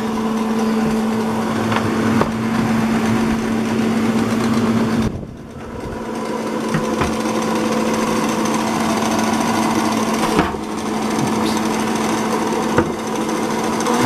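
Gold 'N Hot Elite bonnet hair dryer's fan motor running on low speed with a steady hum. About five seconds in it briefly cuts out and spins back up, with a few clicks from the control knobs along the way.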